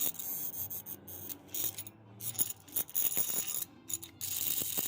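Irregular metallic clicking and rattling as metal tools and parts are handled around a microwave-oven transformer, with a steady hiss starting near the end.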